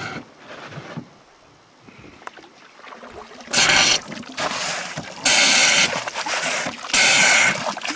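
Bilge pump, the "super sucker", drawing leaked water out of the riveted jet boat's hull, with three loud watery bursts about 1.7 s apart in the second half. The water has seeped in through loose rivets.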